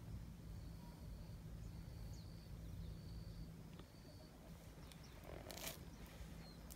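Domestic cat purring low and steady while its head is stroked; the purr stops about four seconds in. Faint, thin, high whistled notes sound over it, and a short rustle comes near the end.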